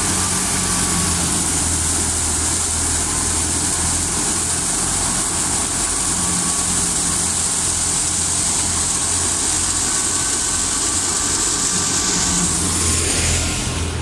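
Small belt-driven wheat thresher running steadily while threshing wheat: a low engine drone from the engine driving it under a loud steady rush of straw and grain through the machine. The noise fades near the end.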